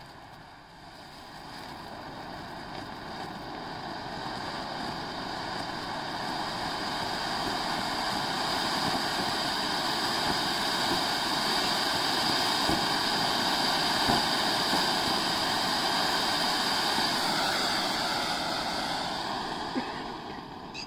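Large matka anar (clay-pot fountain firework) spraying sparks with a steady hissing rush. It builds over several seconds, holds loud, then starts to die down near the end.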